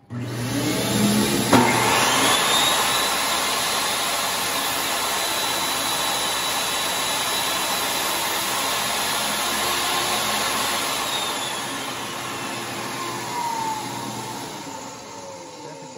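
A shop vacuum switches on, and about a second and a half later a table saw motor spins up with a rising whine. The saw runs while its Freud combination blade cuts a melamine shelf board over a zero-clearance insert. Around eleven seconds in, the saw is switched off and winds down with a falling whine, leaving the vacuum running more quietly.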